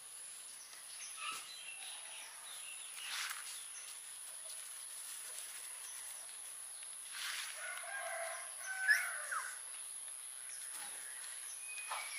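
A rooster crowing, with one long call about seven seconds in, over a steady high-pitched hiss.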